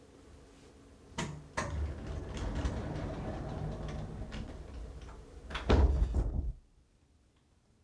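A door being worked: a sharp click, then several seconds of rolling, scraping noise like a sliding door running in its track, ending in a louder thump. After the thump the sound cuts off abruptly.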